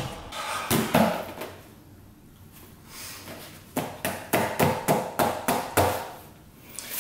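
Hands patting and tapping a cardboard box: a few scattered knocks at first, then a quick run of light taps about four or five a second lasting around two seconds.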